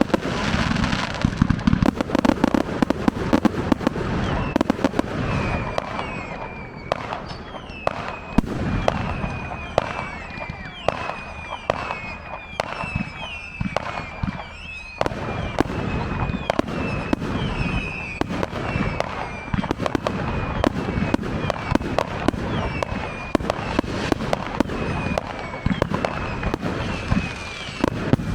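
Fireworks display going off continuously: rapid sharp bangs and crackles from bursting shells, with a string of short high-pitched squeals repeating from about five seconds in.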